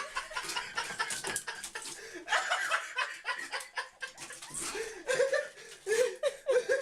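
People laughing and chuckling, with many short knocks and clatters between the laughs.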